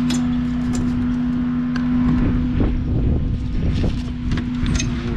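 Heat pump outdoor unit running with a steady hum over a low rumble, with scattered light clicks and knocks from hands working the defrost sensor and its wiring.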